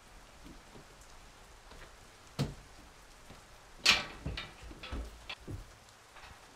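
Someone climbing in through a window: a knock about two and a half seconds in, a sharper, louder one near four seconds, then several lighter bumps. Faint rain runs underneath.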